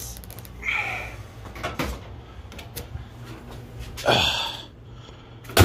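A Subaru Forester's hood is lowered and dropped shut, ending near the end in one sharp, loud slam as it latches. Shorter knocks and a noisy scrape come before it, the scrape about a second and a half earlier.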